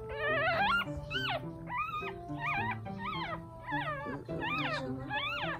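Newborn puppy crying in a run of about eight short, high-pitched squeals that rise and fall, roughly two a second, over background music.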